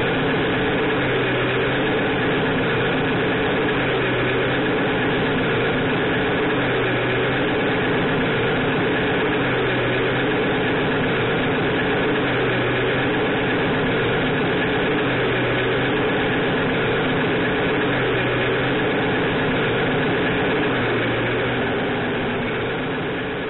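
Simulated diesel truck engine from an RC truck's electronic sound module, running steadily with a low pulse recurring every couple of seconds. It fades out near the end.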